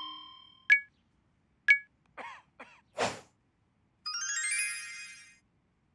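Cartoon sound effects: a bell-like ding rings out and fades, two short high tinks about a second apart, a couple of brief vocal noises and a quick whoosh, then a twinkling magic-sparkle chime cascade about four seconds in.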